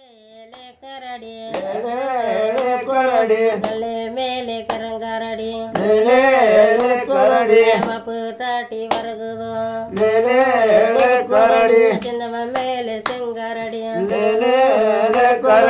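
A voice singing a winding melody, with sharp percussive strikes at irregular intervals of about a second; it fades in over the first second or so.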